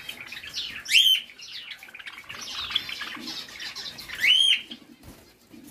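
Java sparrows chirping in a flock, with two louder rising-and-falling calls, one about a second in and one about four seconds in.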